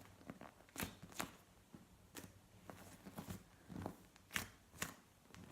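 Faint handling of a large foam squishy toy: a few soft crinkling rustles and light taps, scattered irregularly.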